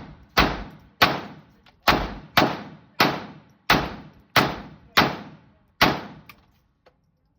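A string of eight gunshots fired at an uneven pace, about half a second to a second and a half apart, each loud crack followed by an echoing tail; the shooting stops about six seconds in.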